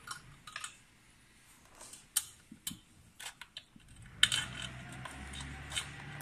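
Scattered small clicks and taps of a metal screw and hand tool against the plastic engine cover of a petrol core drill as the screw is fitted by hand, with a louder cluster of clicks about four seconds in.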